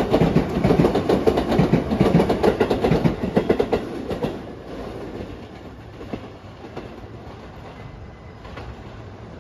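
Sotetsu electric trains passing at close range on the adjacent tracks, wheels clacking rapidly over rail joints and points. About four seconds in, the sound drops away as the last cars pass, leaving a quieter steady background.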